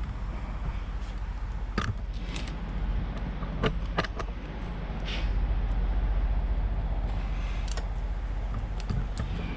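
Scattered light clicks and knocks of hand tools and door hardware being handled, over a steady low hum that grows louder about halfway through.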